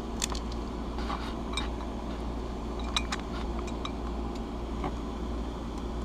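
Light metal clicks and clinks from the parts of a Shields Security door handle lock being handled and pried apart, a handful of scattered ticks, the sharpest about three seconds in, over a steady low hum.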